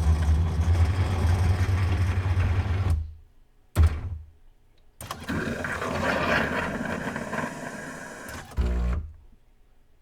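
Terra Kaffe TK-02 super-automatic coffee machine working through its grinding and brewing cycle: its motor runs in bursts, about three seconds with a strong low hum, a brief one near four seconds, then a longer, noisier run from about five seconds that fades, ending with a short low burst and stopping about nine seconds in.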